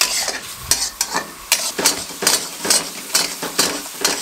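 Metal spatula stirring and scraping mutton around a metal karahi, about three strokes a second, over a steady sizzle of hot oil. This is bhunai: frying the meat down in oil on a high flame.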